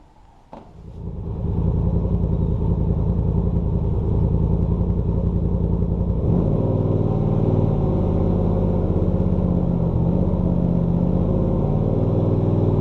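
2019 Polaris RZR Turbo XP's turbocharged twin-cylinder engine starting about a second in and then idling steadily. About six seconds in the note changes and a deeper low hum joins as the drivetrain is engaged to spin the wheels off the ground, testing the drive after an axle seal repair.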